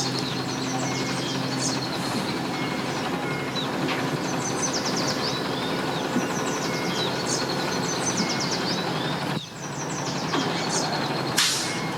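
An engine running steadily with a low hum. A songbird repeats a short high trilling phrase over it every few seconds. There is a brief sharp knock near the end.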